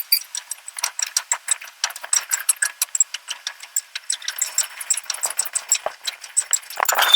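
Rapid, irregular metallic clicking and rattling, several clicks a second, with a rush of hissing noise near the end.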